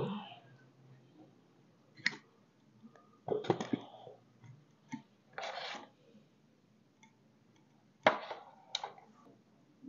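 A handful of scattered knocks, clicks and one short scrape as bricks and thin wooden sticks are handled and shifted on a tiled floor, with near silence between them. The sharpest knocks come about eight seconds in.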